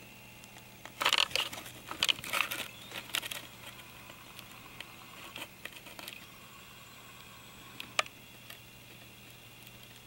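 Camera handling noise: a burst of loud crackling and rustling close to the microphone for a couple of seconds as the camera is moved, then a few softer crackles and a single sharp click, over a faint steady hum.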